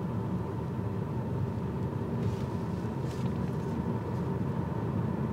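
Steady road and engine noise inside the cabin of a moving car: an even low rumble.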